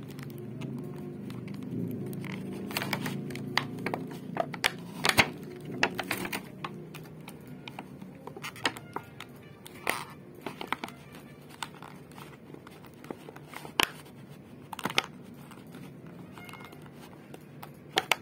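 Clear plastic blister packaging being flexed and pulled open by hand, crackling with many sharp clicks and snaps, thickest in the first six seconds and then sparser.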